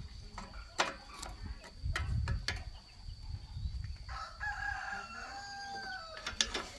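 Rooster crowing once, a long crow starting about four seconds in and dropping in pitch at the end. A few sharp knocks or clicks come earlier and just before the crow ends.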